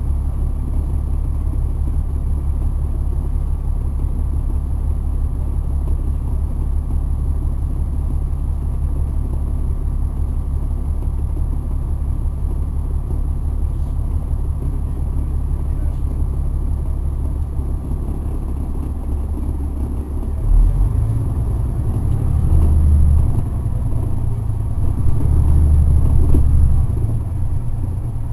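Caterpillar C9 diesel engine of an articulated city bus, heard from inside the cabin, running with a steady low drone. In the last third it grows louder in two spells, the pitch stepping up as the bus pulls away.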